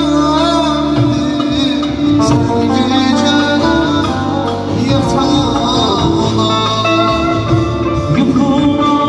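Live band music: a man singing an ornamented, wavering melody through a microphone and PA over electronic keyboard and drum accompaniment.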